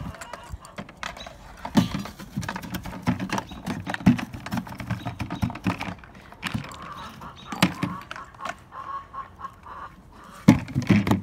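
Hard plastic bucket knocking, clattering and scraping as a dog with its head stuck inside it shakes and moves about, a run of irregular hollow knocks throughout, with a few louder bangs near the end.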